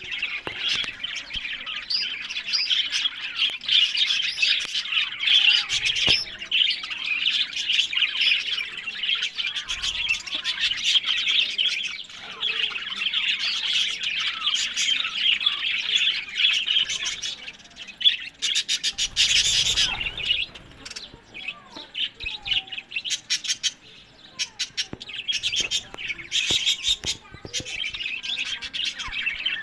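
Budgerigars chirping and chattering in a dense, continuous twitter. About two-thirds of the way through there is a brief louder noise, and after it the chatter thins out for a few seconds.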